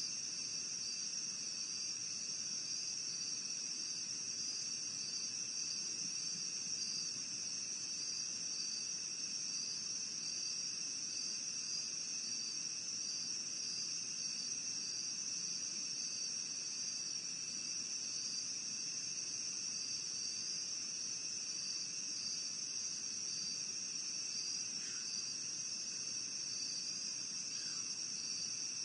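Night chorus of crickets and other insects: a continuous high trilling with a faint regular pulse in it, over a second, lower steady trill.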